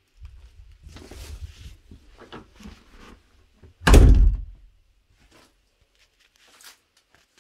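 Footsteps and phone-handling rumble while walking, then one loud thud about four seconds in as a door is pushed and bangs.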